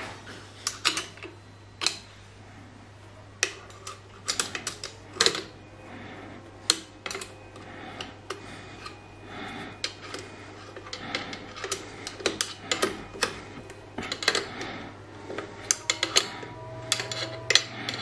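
Irregular metallic clicks and knocks as the metal parts of a milling machine power feed unit are handled and fitted, over a steady low hum.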